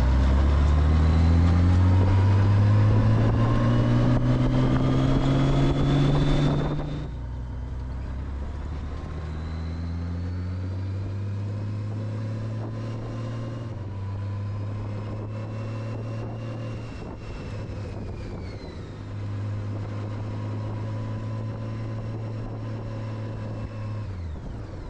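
Motorcycle engine accelerating, its pitch rising, under a loud rush of wind on the helmet microphone. About seven seconds in, the wind noise drops away and the engine runs slower and quieter with small changes in pitch, falling in pitch near the end as the bike slows.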